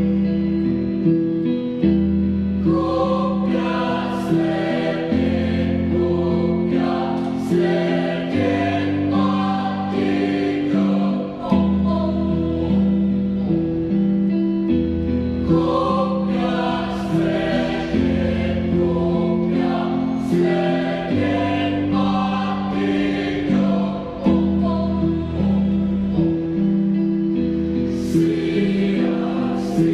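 Youth choir singing an Indonesian folk-song arrangement in several parts, over a steady, repeating bass line.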